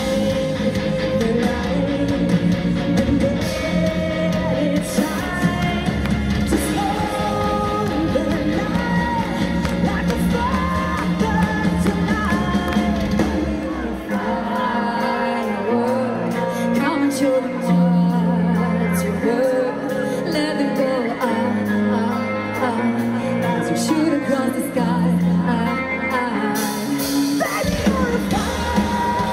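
A live rock band playing with women singing lead and harmony vocals. About halfway through the heavy low end drops away, leaving the voices over held chords, and the full band comes back in near the end.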